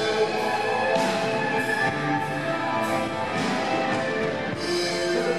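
Live rock band playing: a drum kit with cymbal crashes, electric guitars, bass and keyboards holding sustained chords.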